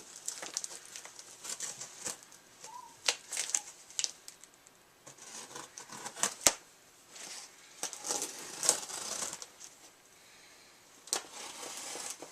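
A knife slitting packing tape on a cardboard shipping box, then the box being pulled open: irregular scraping, tape tearing and cardboard crinkling, with a sharp click about six and a half seconds in.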